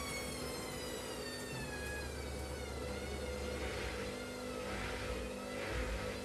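Washing machine running: a motor whine slowly falls in pitch over the first few seconds. Then rhythmic swishing surges of water and laundry come as the drum turns.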